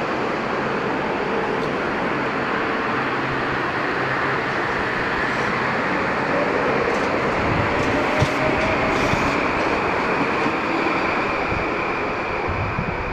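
Metro-North electric commuter train pulling away from the station, a steady rumble and hiss of wheels on rails, with a faint tone rising slowly in pitch about halfway through as it gathers speed.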